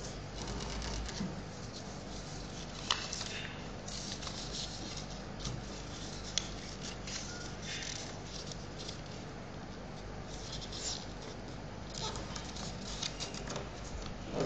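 A sheet of paper rustling and crinkling in the hands as it is folded and creased, with two sharper clicks among the rustles.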